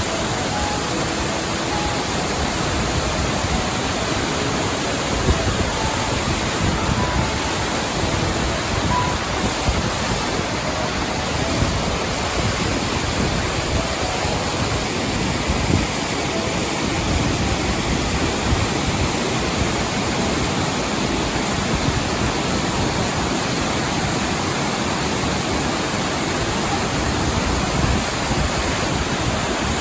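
Steady, unbroken rush of a waterfall's falling water. A few faint musical notes sound over it in roughly the first half.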